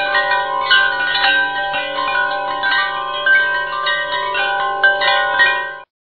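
Wind chimes ringing, many bright metal tones struck in quick succession and overlapping. The sound cuts off suddenly near the end.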